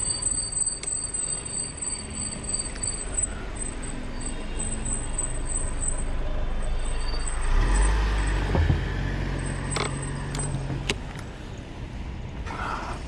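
Steady low rumble of wind and road noise while riding a Zero 10x electric scooter. A motor vehicle's engine swells and passes close about eight seconds in, then fades.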